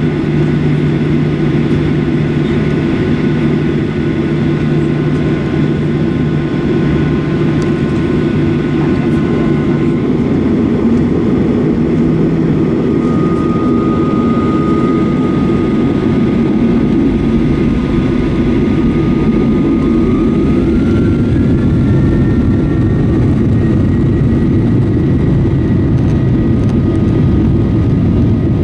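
Boeing 737 jet engines at takeoff thrust heard from inside the cabin during the takeoff roll: a loud, steady roar with a deep rumble underneath and thin whining tones, one of which rises in pitch about two-thirds of the way in.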